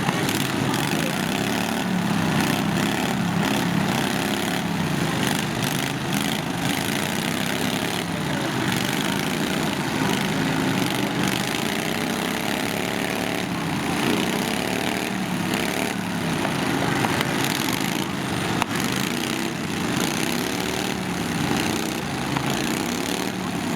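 Several lawn tractor engines running at once, their pitches rising and falling as they rev up and back off, over a steady wash of engine noise.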